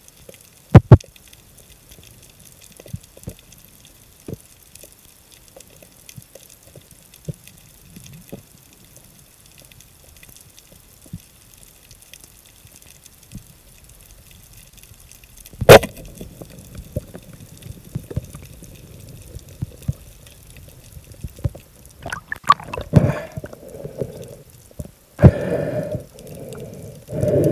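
Underwater recording of a spearfishing dive: scattered small clicks and knocks of gear, a sharp double knock about a second in, then one loud sharp crack of the speargun firing about 16 seconds in. Afterwards steady water noise, with several louder rushing, gurgling bursts near the end.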